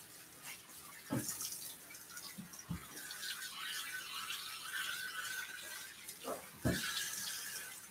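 Handheld bathing sprayer running water over a wet dog's coat, a steady soft hiss of spray. A few dull low thumps come through, about a second in, near three seconds, and near the end.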